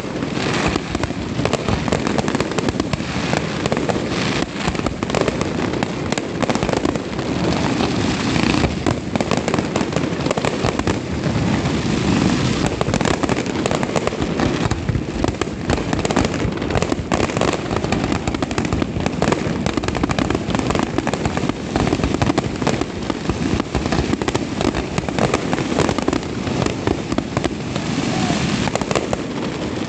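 Fireworks going off in a dense, continuous barrage of rapid bangs and crackles, with no let-up.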